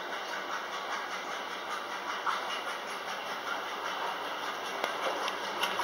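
Commercial washing machines running: a steady mechanical hum and hiss.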